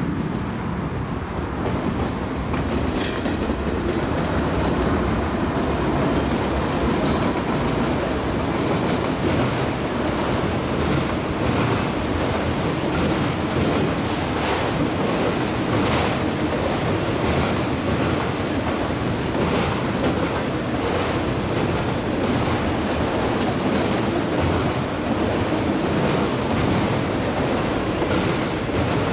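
Long freight train of autorack cars rolling past at speed: a steady rumble of steel wheels on rail, with clacks as the trucks cross the rail joints and brief high-pitched wheel squeals now and then.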